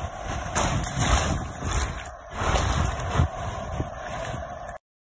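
Wind buffeting the microphone in an uneven low rumble, over the hiss of surf washing up the beach. The sound cuts out briefly near the end.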